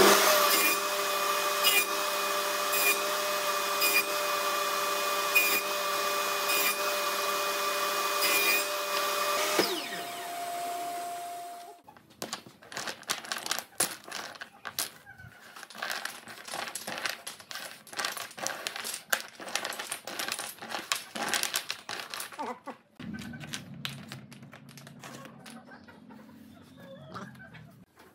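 Table saw running with a steady motor tone and regular ticks, then switched off and spinning down about ten seconds in. After that come many short wooden clicks and clatters as a pile of small wooden offcut blocks is handled and sorted, followed by a quieter low hum near the end.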